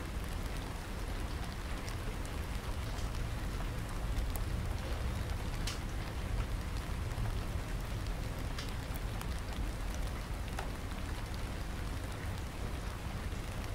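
A steady rain-like hiss with a low rumble beneath it. A few faint light clicks come from small metal parts and a hex key being handled as the model excavator's stick is bolted to the boom.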